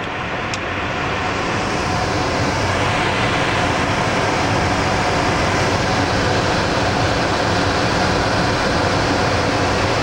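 Steady rushing-air noise with a faint low hum underneath, like a blower or air-handling unit; it grows slightly louder over the first two seconds, then holds even.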